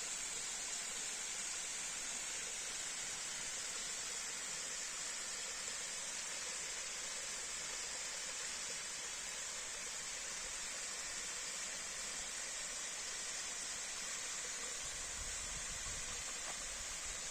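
Waterfall's rushing water: a steady, even hiss, brightest in the high range. A low rumble comes in near the end.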